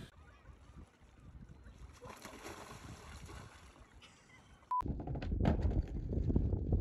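Faint water noise as a person slips off rocks into shallow lake water. A short beep about two-thirds in, then loud wind buffeting the microphone beside choppy water.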